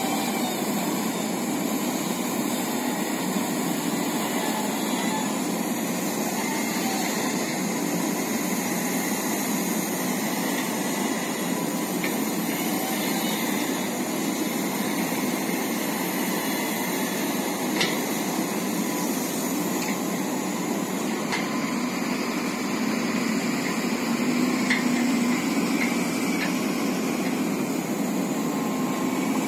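Steady noise of heavy diesel machinery running, with a few faint knocks, a little louder near the end.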